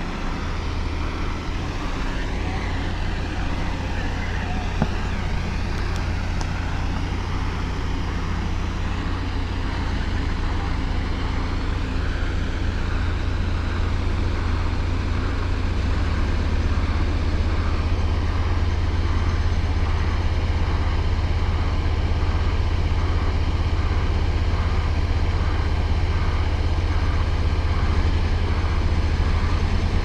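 Heavy diesel earthmoving machinery rumbling steadily under load: a D11 bulldozer pulling a bogged 46-tonne excavator on a recovery sling. The rumble grows slightly louder about halfway through.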